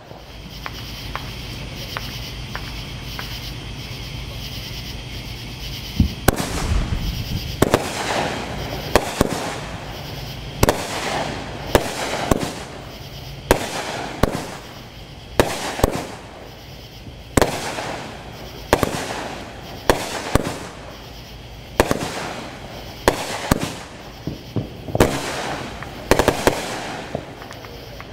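Pyro Demon 16-shot, 200-gram consumer firework cake firing, its shells launching and bursting in sharp reports. The reports start about six seconds in and come about once a second, each with a short crackling tail.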